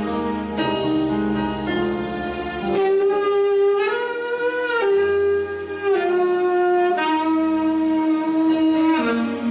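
Alto saxophone playing a slow melody of long held notes over sustained chords from a Yamaha PSR-S770 arranger keyboard.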